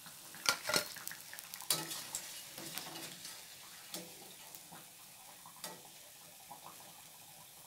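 Egg bondas frying in hot oil with a faint sizzle, while a steel slotted spoon scrapes and clinks against the pan as they are lifted out; a few sharp clinks stand out, mostly in the first two seconds.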